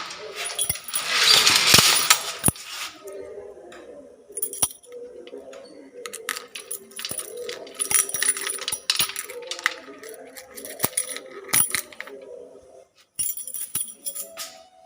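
Iron grill gate being worked open and shut: a loud metal rattle near the start, then scraping and sharp clanks and clicks of the metal frame and latch, with a last burst of clanking near the end.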